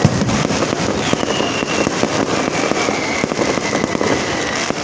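Fireworks display: a dense, continuous run of bangs and crackling, with faint whistles that drift slightly down in pitch.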